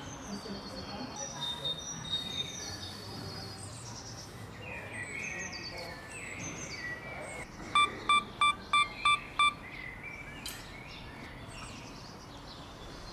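Birds chirping over a quiet outdoor background. About eight seconds in comes a run of six short, identical electronic beeps, evenly spaced about a third of a second apart: a camera on a tripod beeping, typical of a self-timer countdown before the shutter fires.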